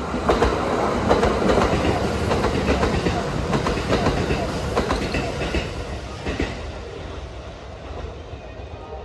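Kintetsu electric train of two coupled multiple-unit sets (2410 series and 1259 series) passing close by. Its wheels clack over the rail joints amid a steady running rush. The sound is loudest in the first few seconds and dies away after about six seconds.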